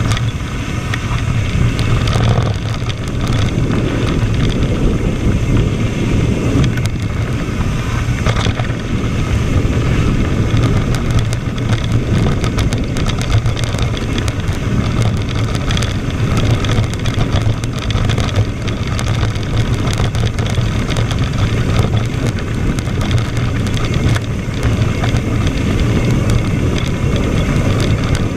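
Ride noise from a GoPro on a descending mountain bike: a steady low rumble of wind on the microphone and tyres on the dirt trail, with constant small rattles and clicks from the bike over rough ground.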